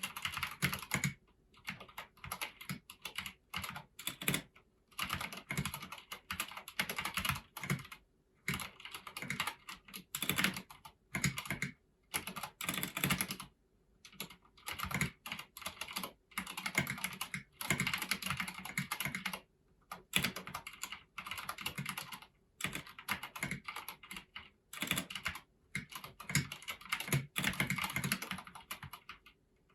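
Typing on a Filco Majestouch Convertible 2 mechanical keyboard with Domi keycaps and foam inside the case: runs of rapid keystrokes broken by short pauses every few seconds.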